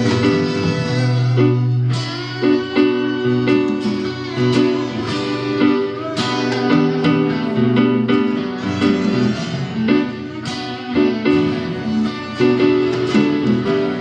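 Live rock band playing an instrumental passage, guitar to the fore over sustained bass and chords, with frequent sharp strums and hits.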